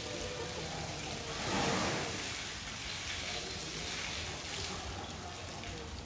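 Water from a garden hose held in an elephant's trunk splashing steadily onto a wet concrete floor, with a louder swell about a second and a half in.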